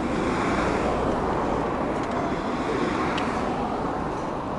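Road traffic noise: a steady rushing that swells and eases off over a few seconds, like a vehicle passing.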